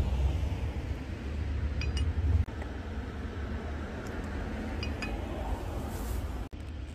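A few light clinks of chopsticks against a small metal dish, over a steady low outdoor rumble that is strongest in the first couple of seconds.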